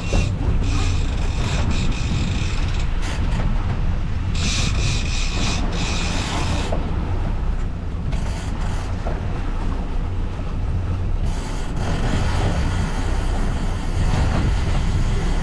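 Twin outboard motors running steadily under way, with wind and water rushing past the hull. Twice a high-pitched hissing whine rises over the engines for a couple of seconds: reel drag paying out line as hooked fish run.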